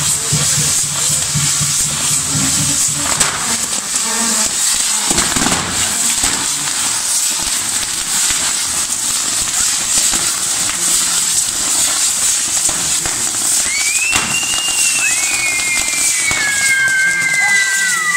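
Fireworks castillo burning: a loud, steady hiss of burning pyrotechnics with scattered crackles and pops. About fourteen seconds in, two high whistling tones join in and slowly fall in pitch.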